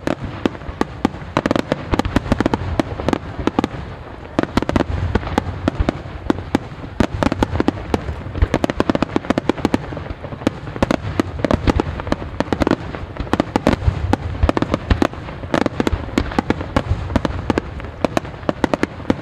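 Aerial fireworks barrage: many shells bursting in quick succession, several sharp bangs a second overlapping one another. The bangs start abruptly and keep up without a break.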